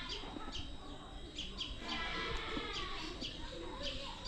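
Birds chirping, short sharp high calls repeating irregularly, with faint voices behind them.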